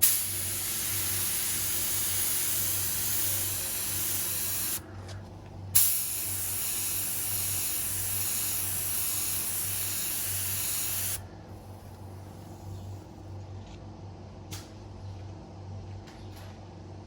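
Two long spray bursts of 2-pack clear lacquer, each an even hiss of about five seconds with a short pause between them about five seconds in. A steady low hum carries on under and after the spraying.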